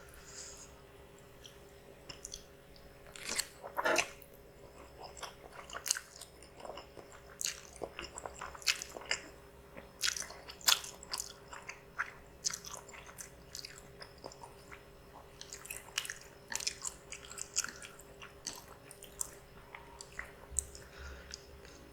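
Close-miked chewing and biting while eating spicy noodles: a string of sharp mouth clicks and crunches at irregular intervals.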